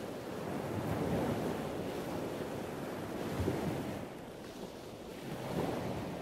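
Ocean waves washing, with wind: a steady rush of surf that eases for a moment about two-thirds of the way through, then swells again.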